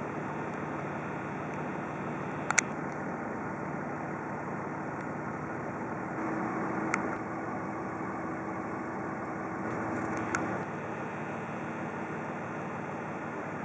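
Pickup truck running, heard from inside the cab: a steady engine and road noise, with three short sharp clicks.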